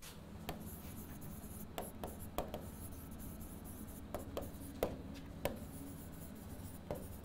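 Stylus writing on an interactive smart board's screen: irregular sharp taps and light scratching as a word is handwritten, a few taps louder than the rest, over a faint steady low hum.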